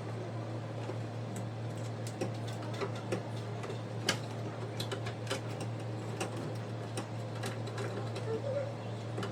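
Screwdriver working the screws out of a microwave's metal casing: irregular small clicks and scrapes of metal on metal, over a steady low hum.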